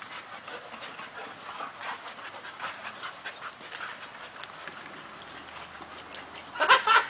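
Dogs playing on sand: scattered footfalls and scuffling, with a loud, short bark near the end.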